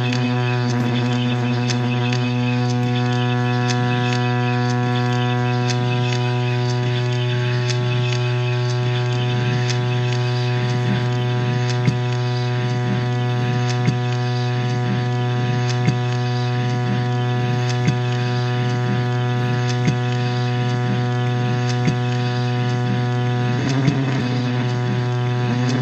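A loud, steady drone rich in overtones, part of a live noise-music performance. From about halfway through, a sharp click sounds every two seconds, and the drone wavers briefly near the end.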